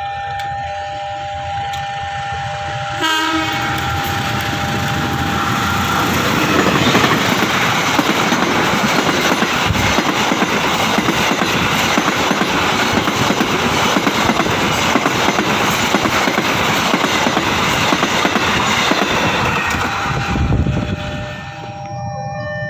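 Diesel-electric locomotive sounds its horn briefly about three seconds in, then hauls a passenger train past at speed, the wheels clattering over the rails. The noise fades out near the end as the train moves off.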